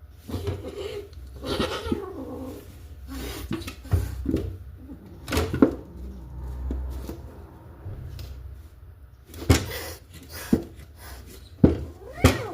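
A cat calling several times, with a few sharp knocks or thumps in between.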